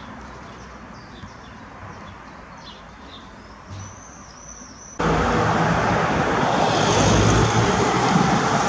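Quiet street ambience with a few short high chirps. About five seconds in, it switches abruptly to loud road traffic, a car passing close by with a steady rushing noise.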